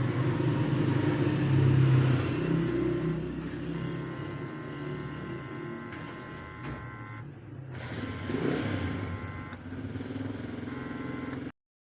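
Sound played through the repaired TV's speakers: a steady low rumble and hum with noise over it. From about four seconds in, a stack of steady higher tones cuts in and out a few times. Everything stops suddenly near the end. It shows the audio amplifier is working again now that the burst 220 µF 16 V speaker capacitors have been replaced.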